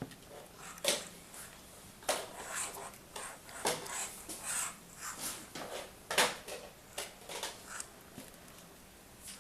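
Hand tools working a wire and a Molex crimp socket: several sharp clicks, the loudest about six seconds in, with scraping and rustling handling noises between.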